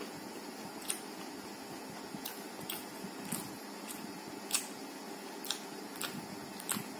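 Eating sounds: chewing with the mouth closed, giving soft wet clicks that come irregularly, about one a second, over a steady background hiss.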